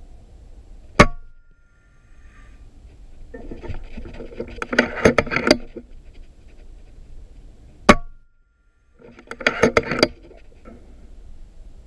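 Two shots from a moderated .30 calibre FX Impact M3 PCP air rifle, single sharp cracks about seven seconds apart. A couple of seconds after each shot comes about two seconds of rapid clicking and rattling.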